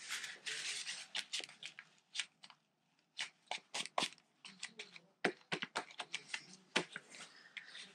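Paper rustling and crinkling with irregular sharp taps as a hand presses and rubs a glued paper dog cut-out onto a cardstock box.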